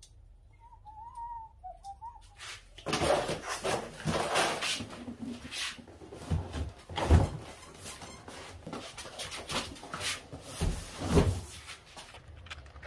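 Heavy cardboard shipping boxes being dragged, scraped and shifted against each other, with two heavy thumps in the second half as they are set down. A brief wavering whine comes before the handling starts.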